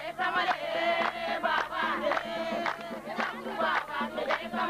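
A crowd of women singing together in wavering voices, with a sharp beat struck about twice a second.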